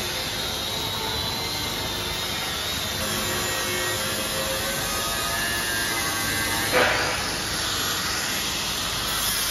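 Handheld angle grinder grinding along a steel plate, a steady noisy hiss of disc on metal, with one sharp loud hit about seven seconds in.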